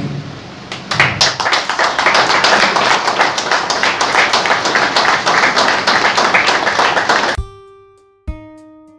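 Applause from a group of people clapping, starting about a second in and cutting off suddenly about seven seconds in. A few sustained notes of instrumental music follow near the end.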